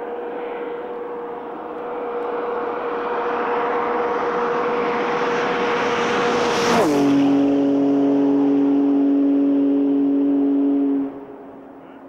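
1983 Porsche 930 Turbo's turbocharged flat-six at full throttle, approaching at very high speed and passing close by. Its steady engine note grows louder, drops sharply in pitch as the car goes past about two-thirds of the way through, then falls away suddenly near the end.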